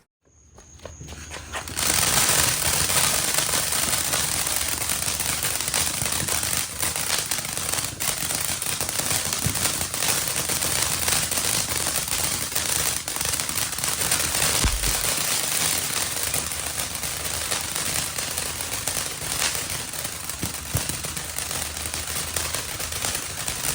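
Pyro Demon 'Amazing' 500-gram fountain firework catching about two seconds in and then spraying steadily, a continuous hiss thick with rapid crackling pops.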